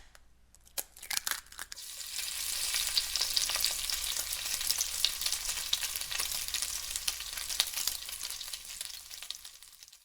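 An egg frying in a hot pan: a few sharp crackles, then a dense sizzle full of small pops that builds over the first couple of seconds and slowly dies away near the end.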